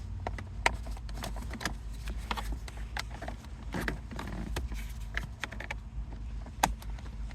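Plastic trim cover beside a car's gear shifter being pried loose: a run of light clicks and scrapes of plastic against plastic, with two sharper snaps, one just under a second in and one near the end. A steady low hum sits underneath.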